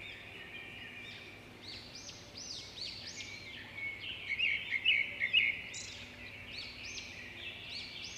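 Wild birds singing and chirping: many short, repeated high notes from more than one bird, busiest about halfway through.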